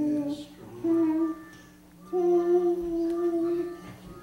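A toddler girl singing into a microphone: two short notes, then one long held note for almost two seconds.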